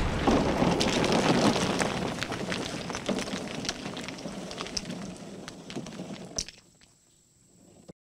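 Rubble crumbling and clattering down after a wall is smashed: a dense rattle of many small knocks that fades away over about six seconds, with one sharp crack near the end.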